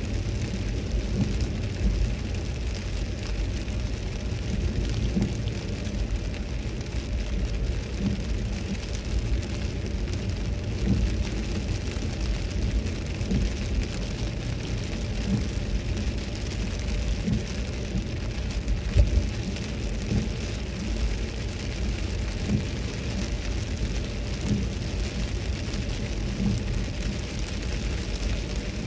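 Inside a Toyota Celsior's cabin while driving on wet pavement in rain: a steady low road rumble with the hiss of tyres on the wet surface and rain on the car, with small irregular knocks.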